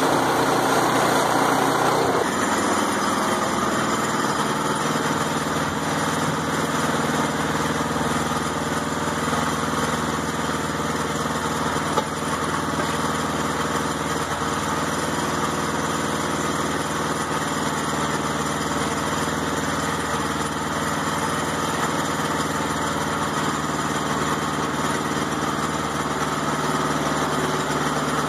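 Woodland Mills portable band sawmill's small gas engine running steadily while the band blade cuts through a maple log. The sound shifts about two seconds in, then holds steady.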